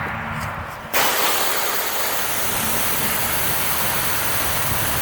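Pressure washer running with a low hum, then about a second in the wand opens and high-pressure water spray starts with a loud, steady hiss, rinsing off dwelled EBC cleaning solution.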